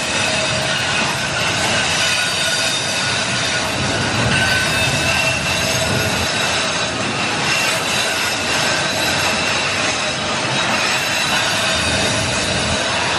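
Freight wagons loaded with eucalyptus logs rolling past close by: a steady rumble of steel wheels on the rails, with a high, steady squeal from the wheels.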